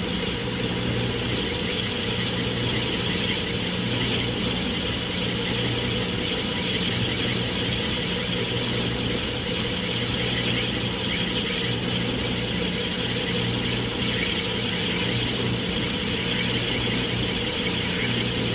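Clausing manual metal lathe running steadily, with a low hum and a thin high whine over a busy mechanical rattle.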